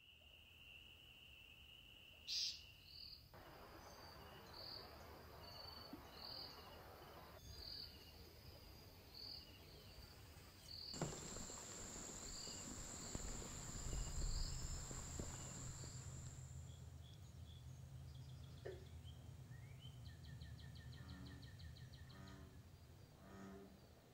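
Insects chirping in repeated short high calls, with faint low rumble underneath. There is a brief sharp sound a couple of seconds in and a falling whoosh about eleven seconds in.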